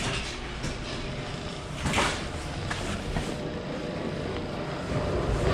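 Electric overhead garage door opener running, hauling a sectional garage door up with a steady motor rumble and rattle, and a louder rattle about two seconds in.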